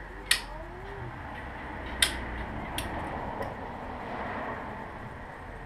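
Sharp metallic clinks of a hand tool on a race motorcycle's front fork and wheel fittings during a front wheel change: four clicks spaced roughly a second apart, the first two loudest, over a steady low background noise.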